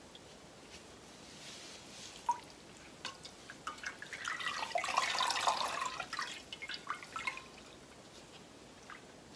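Dye liquid dripping and trickling back into a stainless steel pot from a skein of wet wool yarn lifted out of a cochineal dye bath, building to a steady splattering about four to six seconds in and thinning to a few drips by the end.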